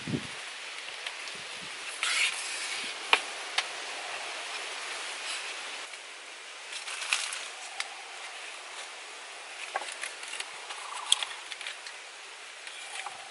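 Sharp clicks and knocks of bamboo poles being handled and lashed together by hand, with leaves rustling, over a steady background hiss.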